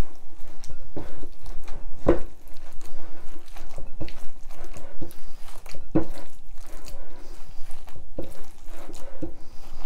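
Spatula stirring a thick, wet ricotta, egg and chopped-vegetable mixture in a glass bowl: repeated squelching strokes, two of them louder, about two and six seconds in.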